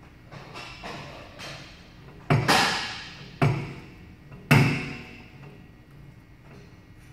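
Gym weight-machine stack clanking down three times, about a second apart, each knock ringing briefly, with a few fainter knocks before them.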